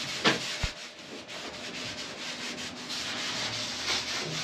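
A cloth rag rubbed back and forth over a primed fiberglass wall, wiping on a Dykem guide coat: a steady dry rubbing.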